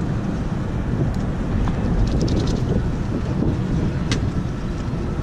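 Wind buffeting the microphone, a steady low rumble, with a few light clicks about two seconds in and once more a little later.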